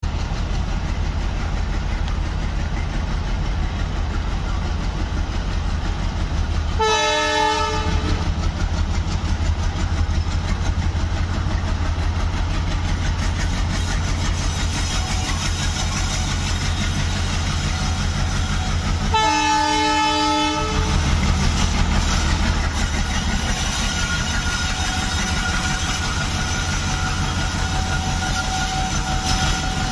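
WDM3A diesel-electric locomotive's ALCO 16-cylinder engine running with a deep, steady rumble as it draws a goods train past. It sounds its horn twice, a blast of about a second around seven seconds in and a slightly longer one around twenty seconds in. A thin, steady whine joins in over the last few seconds.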